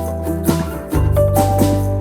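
Background music: an upbeat instrumental with a bass line, sustained notes and light percussion keeping a steady beat.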